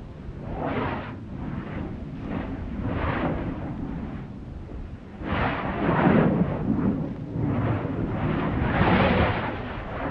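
Stromboli volcano's crater vents, recorded from the crater rim, giving off a run of rumbling gas bursts roughly once a second. They grow louder and run closer together from about halfway through.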